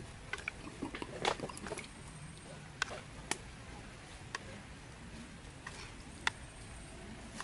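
Spoon clicking and tapping against cooked snail shells as chili sauce is spooned into them: a cluster of light clicks about a second in, then single ticks every second or so.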